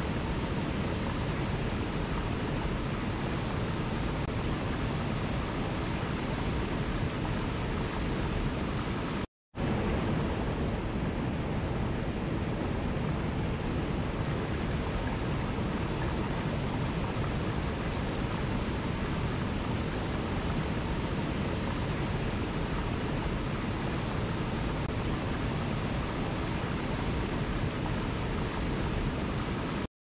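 Water rushing steadily through a cascade. About nine seconds in it cuts out to silence for a moment, an edit in the recording, then resumes unchanged.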